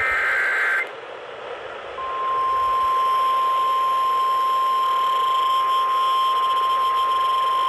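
Emergency Alert System broadcast: the last of the three SAME header data bursts, a brief shrill warbling screech under a second long, then, about two seconds in, the steady single-pitch 1050 Hz NOAA Weather Radio warning alarm tone, heard over AM radio.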